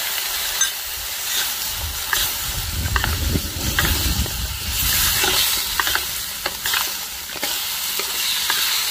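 Chicken sizzling in a hot wok as it is stirred and turned with a wooden spatula, with scattered scrapes and knocks of the spatula against the wok. A low rumble sounds from about two seconds in to past the middle.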